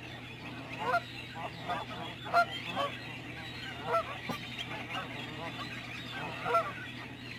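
A large flock of waterbirds calling at once: many overlapping calls, with louder single calls rising out of the chorus every second or two.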